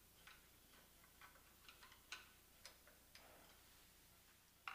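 Faint, irregular metallic clicks of a hand screwdriver turning a screw in a brass deadbolt, roughly two a second, with a sharper click near the end.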